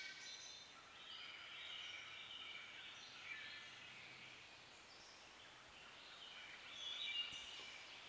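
Songbirds singing faintly in woodland: short, high phrases at several pitches, the loudest group near the end.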